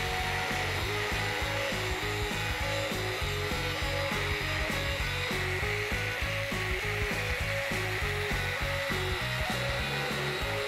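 Instrumental background music with a steady beat and a repeating melody, over a steady, even hiss.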